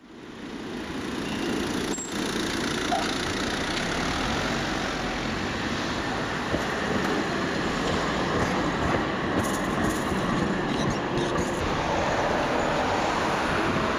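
Old-fashioned tram running on its rails, a steady rumble of wheels and running gear, with a few light clicks around ten seconds in. The sound fades in over the first second or two.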